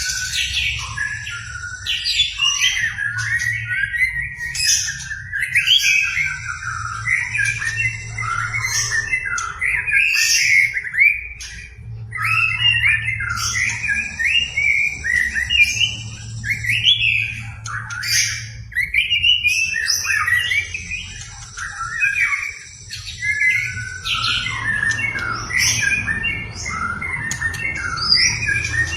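White-rumped shama singing a continuous, varied song of rapid whistled phrases and sharp high notes, delivering its full repertoire of mimicked calls.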